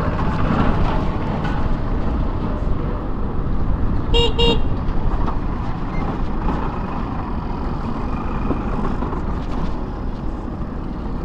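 Steady wind and road noise from riding an electric scooter through traffic, with two quick beeps of a vehicle horn about four seconds in.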